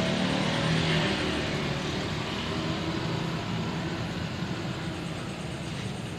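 A motor vehicle driving past on the road, its engine and tyre noise loudest about a second in and then fading away.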